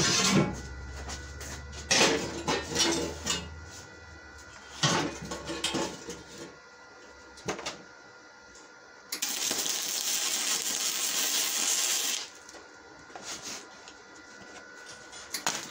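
Spool-gun welding setup at the bench: a low electrical hum with sharp metallic clicks and knocks for the first few seconds, then scattered clanks. Past the middle, a steady hiss runs for about three seconds and cuts off suddenly.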